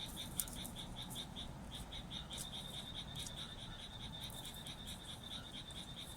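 Frogs calling in a fast, even string of high-pitched croaks, several a second. Scattered sharp crackles from a damp-wood bonfire sound over them, one louder pop about half a second in.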